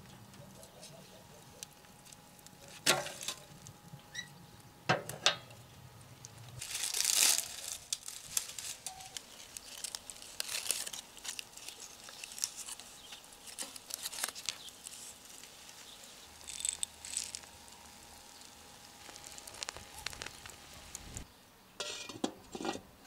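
Metal clanks and knocks from a cast-iron wood stove being tended: two or three sharp clanks a few seconds in as the firebox door is worked, a longer clattering rustle soon after, scattered small knocks, and a few metal clinks near the end as the lid is set on the cauldron.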